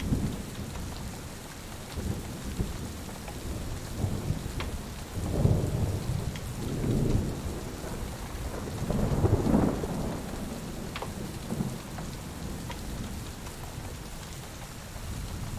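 Steady rain with thunder rolling in low rumbles, swelling three times in the middle. A wood fire gives a few sharp crackling pops over it.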